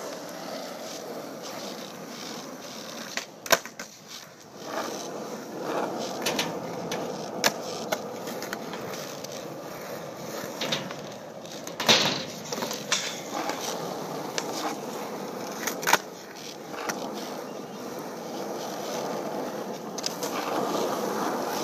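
Skateboard wheels rolling over concrete with a steady grinding rumble, broken by several sharp clacks of the board hitting the ground, the loudest about three and a half, twelve and sixteen seconds in.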